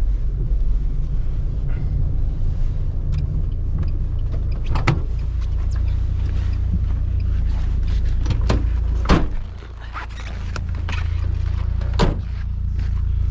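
Steady low rumble of a running motor vehicle, with several sharp clicks or knocks; the rumble drops away for about a second some two-thirds through, then comes back.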